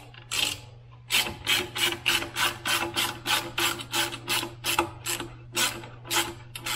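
Hand socket ratchet clicking rapidly and evenly as it is worked back and forth to undo a bolt on a motorcycle's factory exhaust mounting. After a couple of single clicks, the steady run of clicks starts about a second in.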